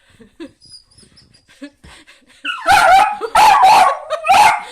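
Mini beagle barking in loud, short, repeated barks, about four of them, starting about two and a half seconds in after a quiet stretch; demand barking at popcorn in a box she can't reach.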